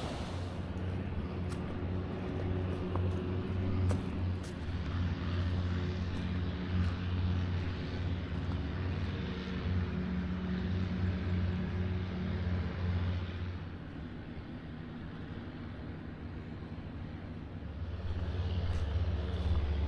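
An engine running steadily with a low drone. It eases off about two-thirds of the way through and picks up again near the end.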